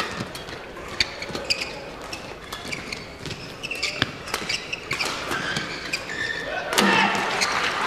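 Badminton rally in an arena: a string of sharp racket strikes on the shuttlecock and brief squeaks of court shoes. A loud burst of crowd noise rises near the end as the point finishes.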